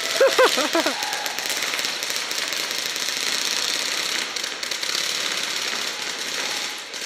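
Airsoft guns firing steadily in rapid full-auto fire, a dense continuous rattle, with a short voice call at the start.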